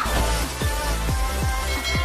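Electronic background music with a quick, steady beat of falling bass notes.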